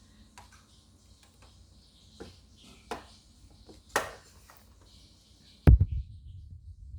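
Small USB box fan handled with a few light clicks and knocks, then a sharp click near the end followed by a low rumble of air buffeting the microphone as the fan runs.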